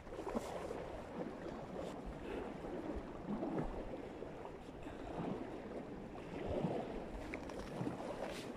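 Small waves lapping at the lake's edge, a soft watery splashing that swells and fades irregularly about every second.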